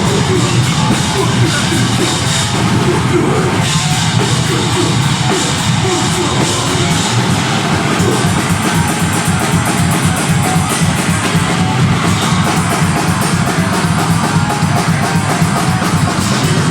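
Deathgrind band playing live: distorted, heavy instruments over rapid drumming, a dense, loud and unbroken wall of sound.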